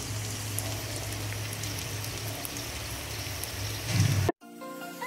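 Pork sisig sizzling on a hot sizzling plate: a steady hiss with scattered small crackles. It swells, cuts off abruptly a little over four seconds in, and music begins.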